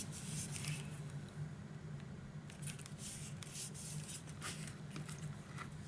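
Faint rustling and soft ticks of hands pressing and smoothing glued paper down on a card page, over a steady low hum.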